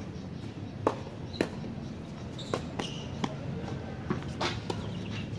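Tennis balls being struck by rackets and bouncing on a hard court: a string of sharp, irregularly spaced knocks, the loudest in the first second and a half.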